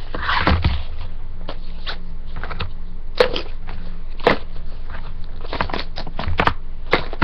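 Handling noise: scattered rustles and clicks of cosmetic products and packaging being moved about by hand, over a steady low hum.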